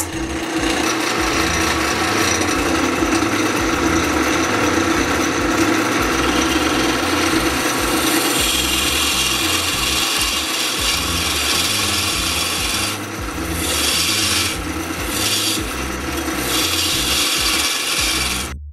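A turning tool cuts a spinning mountain ash (rowan) blank on a wood lathe, a loud, continuous scraping hiss of wood being shaved away over a steady hum. The cut changes about eight seconds in, eases off briefly twice, and stops abruptly near the end.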